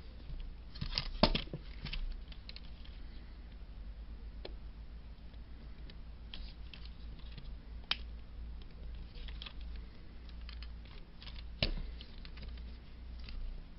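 Small scattered clicks and taps of flush-cut pliers gripping and working at the pin of a Lionel model-train coupler, with a few sharper clicks about a second in, near the middle and near the end.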